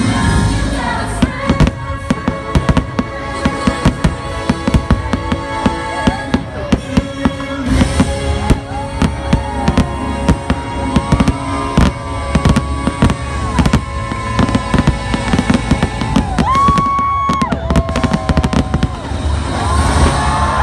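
Aerial fireworks launching and bursting in rapid succession, sharp cracks and bangs several times a second, over the show's soundtrack music.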